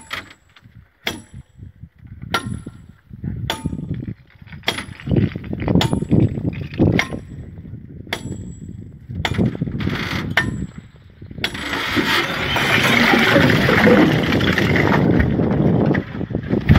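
Metal tools hammered into the crack of a huge boulder to split it: a ringing clang of metal on metal about once a second. About eleven and a half seconds in, the strikes stop and a long, loud rumbling noise follows as the rock gives way.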